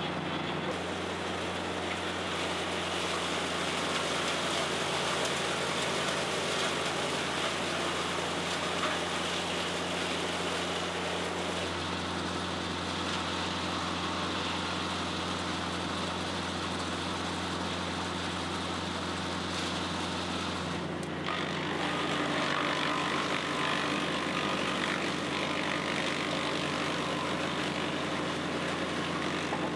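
Bandit Model 90XL wood chipper's diesel engine running steadily. About two-thirds of the way through, the sound dips briefly and then runs a little louder.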